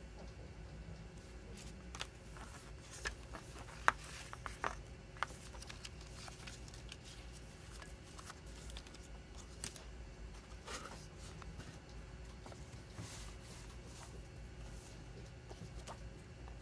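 Hands handling a CD single's packaging: paper and card inserts and photo cards rustling, with scattered light clicks and taps, busiest a few seconds in. A steady low hum lies underneath.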